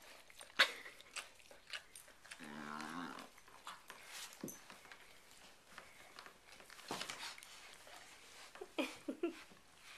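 German shepherd licking inside a coonhound–mastiff mix's mouth: a run of wet smacking and slurping clicks. About two and a half seconds in, one of the dogs gives a low, drawn-out groan, and near the end there are a few short whimpers.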